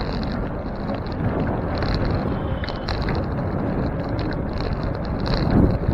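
Riding noise from a bicycle: wind buffeting the handlebar camera's microphone, with tyres rumbling over the road surface.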